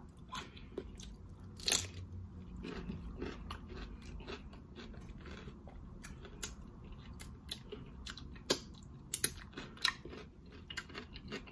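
Raw cucumber spear, dipped in sauce, being bitten and chewed close to the microphone: a run of sharp wet crunches, loudest about two seconds in and again twice around eight to nine seconds.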